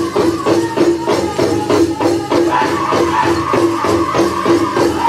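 Powwow drum group singing a contest song for prairie chicken and grass dancers, beating a large drum in a steady, fast rhythm. The dancers' bells jingle along with the beat.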